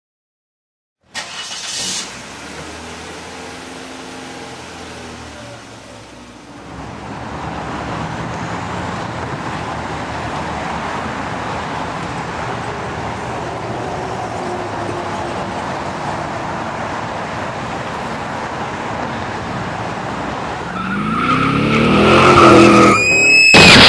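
A car engine starts and idles, then the car drives off with steady engine and road noise. Near the end the engine revs up and climbs in pitch, a brief high squeal follows, and a loud crash impact hits right at the end.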